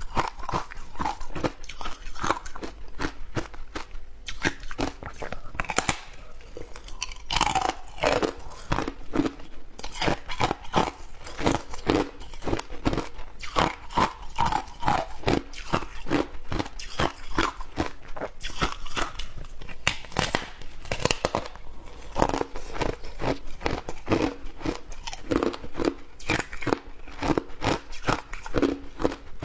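Close-miked crunching and chewing of shaved ice in the mouth: rapid, irregular crunches that keep going without a break.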